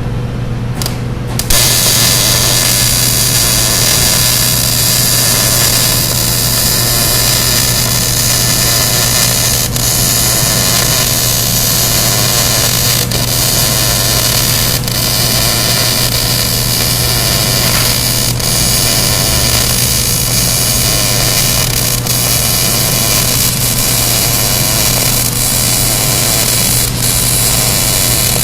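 Electric arc welding: the steady crackling sizzle of the arc over a constant low hum, starting about a second and a half in, as a brake tab is fully welded to the steel dolly frame.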